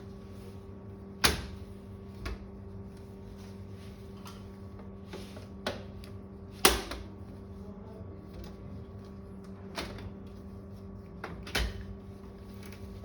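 Scattered sharp clicks and knocks of a computer tower's front panel being opened and handled: about seven of them, the loudest about halfway through, over a steady low hum.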